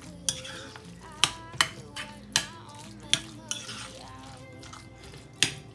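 A spoon stirring a thick chicken and cottage-cheese filling in a ceramic bowl, with several sharp clinks of the spoon against the bowl spread irregularly through the stirring.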